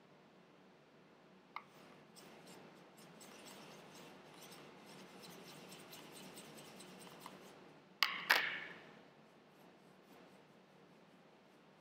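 Paintbrush mixing paint in the well of a plastic palette: a faint scratchy swishing with small ticks, then two sharp clacks close together about eight seconds in.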